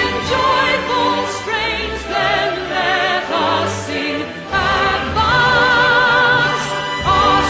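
A national anthem sung by a choir over orchestral accompaniment. The voices sing with a strong vibrato over sustained bass notes, holding one long note in the second half.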